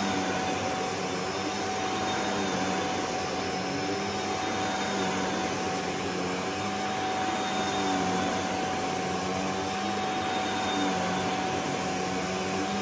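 Shark DuoClean upright vacuum cleaner running steadily on carpet, its motor holding one steady pitch.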